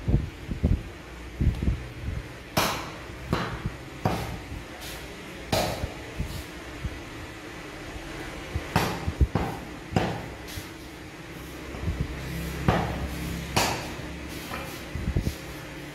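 Heavy meat cleaver chopping meat on a wooden stump chopping block: single sharp chops at an uneven pace, roughly one every second or so, with short pauses between groups.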